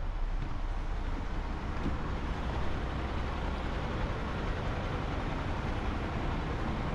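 Steady urban traffic noise: a continuous low rumble of road vehicles with an even hiss over it.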